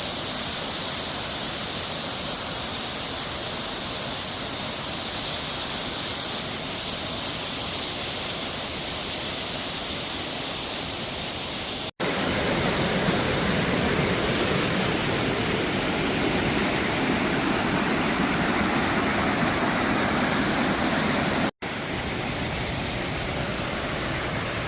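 Waterfall: falling water making a steady rushing noise that breaks off abruptly twice; the middle stretch is louder and deeper.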